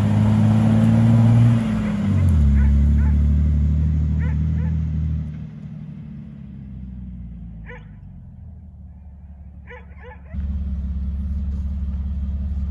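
A lifted Jeep Wrangler TJ's engine runs as it drives past. The engine note drops about two seconds in, then fades as the Jeep pulls away. A dog barks faintly a few times. The engine comes back loud and steady near the end.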